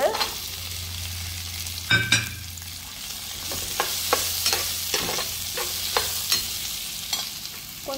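Cut vegetables sizzling in hot oil in a clay pot as potato pieces are tipped in and stirred with a steel ladle, which clinks and scrapes against the pot several times. The sizzle grows a little louder about three seconds in.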